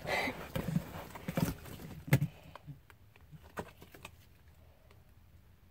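White homemade slime being stretched and squeezed between the hands, giving small sticky clicks and crackles, most of them in the first two or three seconds.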